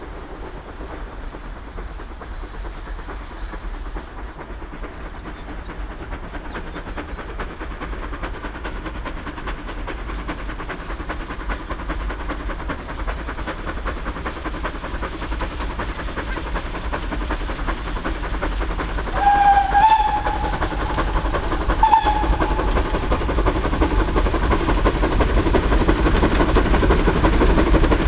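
Steam locomotive 813, an 0-6-0 saddle tank, working a train of coaches and coming closer, its exhaust and running noise growing steadily louder. Its whistle sounds twice in short blasts about two-thirds of the way through.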